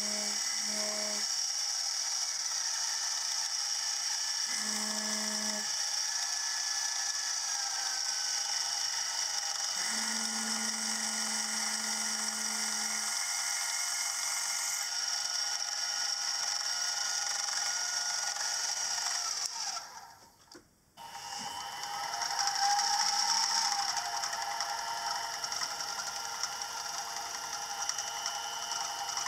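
Milling machine spindle running as a drill and then a reamer cut the 3/16 in crankshaft hole through the boss of a cast crank web, with a steady machine whine. About two-thirds of the way through the sound drops out briefly, then the machine starts up again.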